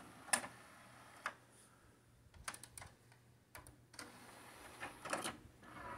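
Pioneer CLD-V850 LaserDisc player's disc tray ejecting: a scattering of faint mechanical clicks and ticks, with a quick cluster about two and a half seconds in and a few more near the end.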